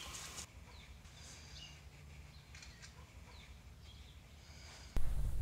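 Faint, scattered bird chirps over quiet outdoor background. About five seconds in, music comes in suddenly with a heavy low start.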